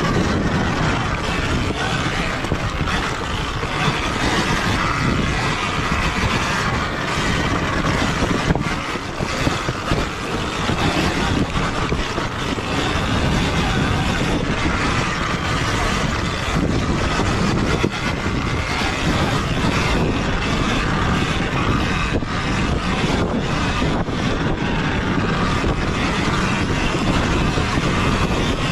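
Sur-Ron Ultra Bee electric dirt bike ridden hard on a rough dirt trail: a steady rush of wind and rolling noise from tyres, chain and suspension, with the electric motor's faint whine and no engine exhaust note.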